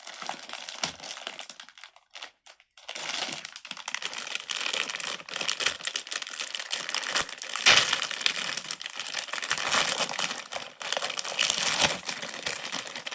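Dense crinkling and rustling of plastic being handled, starting with short bursts and then running on thickly from about three seconds in.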